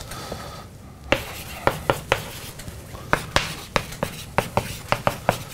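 Chalk writing on a blackboard: a quick run of sharp taps and short scrapes as letters are stroked out, starting about a second in.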